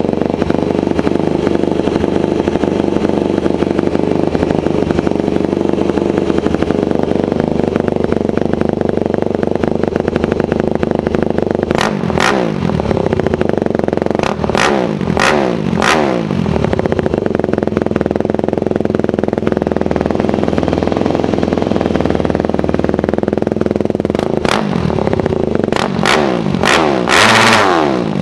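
2002 Yamaha YZ250F single-cylinder four-stroke dirt bike engine, with an FMF Powerbomb header and Powercore 4 muffler, running on a freshly rejetted carburettor. It idles steadily, then is blipped up to high revs four times in quick succession about halfway through and a few more times near the end, each rev falling back to idle.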